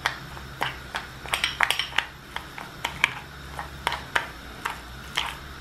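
A metal spoon stirring a thick chili paste in a ceramic bowl, clicking and scraping against the bowl's sides in quick, irregular strokes.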